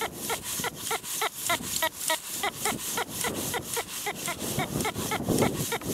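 Teknetics T2 metal detector sounding a rapid run of short beeps, about five a second, each with a scratchy edge, as the coil is swept back and forth over a shallow target: a strong, close-target signal.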